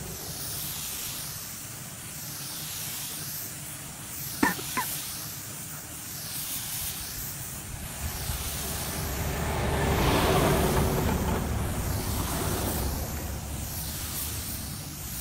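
Compressed-air gravity-feed spray gun hissing as it lays clear coat onto a car bonnet, the hiss swelling and fading evenly with each pass of the gun. Two short sharp squeaks come about four and a half seconds in, and the hiss grows louder for a few seconds past the middle.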